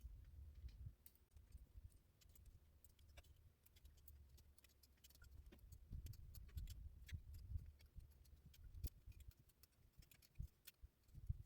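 Faint scattered clicks and small metallic ticks, as of parts and a tool being handled while an exhaust fitting is tightened, over a faint low rumble.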